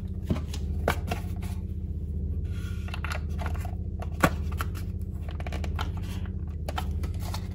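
Clicks and light plastic handling noise as metal clips are pushed into a plastic fairing panel, with one sharper click about four seconds in. A steady low hum lies under it.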